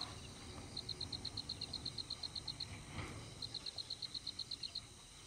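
A cricket-like insect calling in high, rapid pulses, about nine a second, in trains of one to two seconds separated by short pauses.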